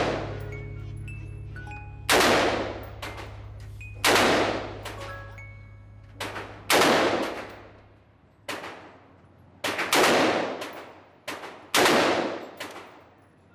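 AR-style semi-automatic rifle fired shot by shot in an indoor range. Each crack is followed by a long echoing decay. About six loud shots come some two seconds apart, with fainter shots in between.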